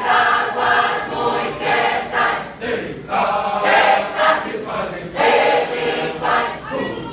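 Mixed church choir of men and women singing together, in sung phrases with short breaths between them.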